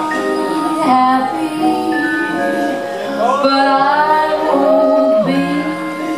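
Music with a woman singing, holding long notes that bend and waver in pitch.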